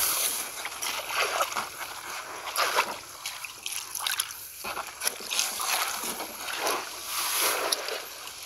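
Hands and bare feet splashing and sloshing in shallow muddy water in irregular bursts, as the ditch bottom is groped by hand for fish.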